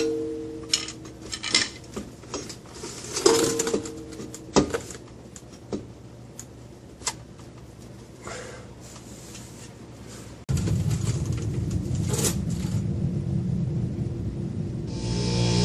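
Steel hand tools and a homemade steel bar wrench clinking and clanking against the pinion yoke of a Dana 35 axle, two of the clanks ringing on for about a second. About two-thirds of the way in a steady low hum starts suddenly.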